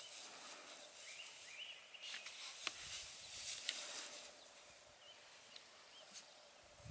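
Bordoodle puppies playing in grass: faint rustling and scuffling, with a few sharp ticks around the middle and a few short rising high chirps.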